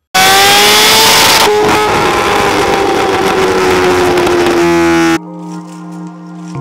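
Motorcycle engine at high revs, very loud and distorted, its pitch slowly falling over about five seconds, typical of a Kawasaki Ninja H2's supercharged inline-four on a dyno pull. It cuts off suddenly about five seconds in and music with held notes takes over.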